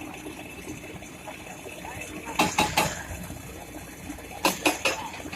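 Excavator working: a steady engine hum, broken twice by a quick run of three sharp knocks, about two seconds apart.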